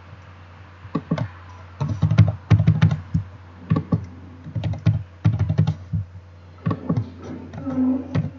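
Typing figures on a computer keyboard: quick, irregular runs of key clicks over a steady low hum.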